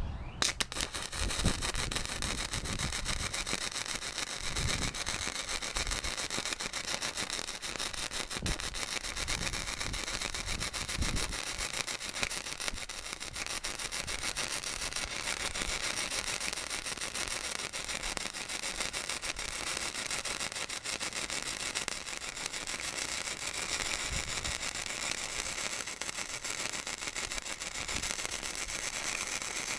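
Blue Demon 140MSI welder running flux-core wire: a continuous crackling, spitting welding arc that strikes up right at the start and keeps going. The wire is not feeding smoothly, giving a rough transfer the welder likens to globular MIG welding.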